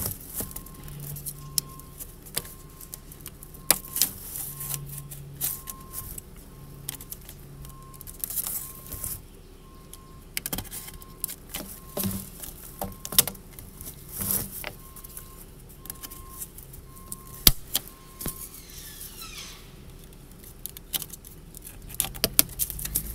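Scattered clicks, taps and scrapes of hand work: old glue being cut and scraped off a plastic RV sewer hose fitting. A faint, steady, repeating beep runs underneath and stops about eighteen seconds in.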